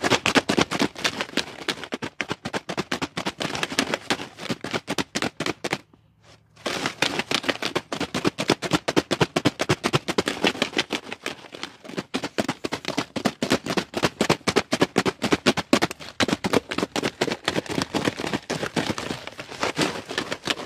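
Motorcycle drive chain clattering and sloshing in petrol inside a plastic drink bottle, shaken hard back and forth to wash the grime out of it. The rattling is fast and continuous, with a brief pause about six seconds in.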